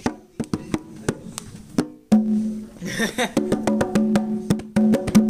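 Conga drums struck with the hands: a few scattered hits, then from about two seconds in a fast run of hand strokes, the drumheads ringing with a low pitch.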